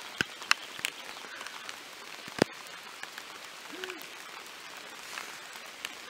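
Steady rain falling, an even hiss with scattered sharp drop ticks, one louder tick about two and a half seconds in.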